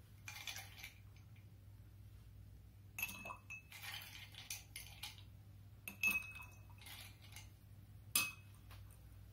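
Ice cubes dropped one at a time into a glass holding the rum, lime and syrup mix, each one a sharp clink against the glass, some with a brief ring. The clinks come at irregular intervals of about a second, with the loudest about six and eight seconds in.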